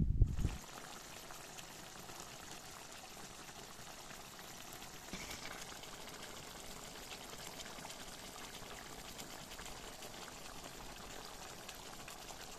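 Stuffed eggplants simmering in tomato sauce in a pan: a steady, soft bubbling with fine crackles. A low rumble cuts off in the first half-second.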